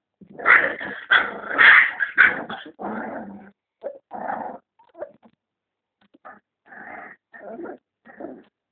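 Red-nose pit bull puppy growling in a series of short bursts, loudest over the first three seconds and broken into shorter growls after.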